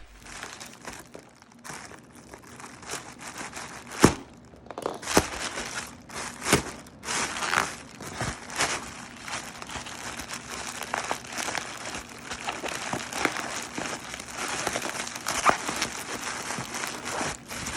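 Plastic packing wrap crinkling and rustling as it is pulled and torn off a packed bass guitar, with scattered sharp crackles and a few knocks, the loudest about four seconds in.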